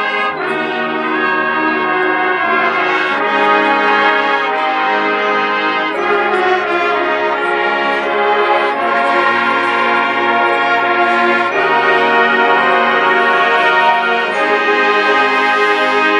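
Marching band playing a loud, brass-led passage of sustained chords that change every few seconds and swell gradually louder.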